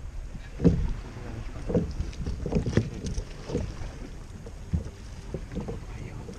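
Irregular knocks and bumps against a fishing kayak's hull and deck gear while a caught ladyfish is handled, over a low wind rumble on the microphone.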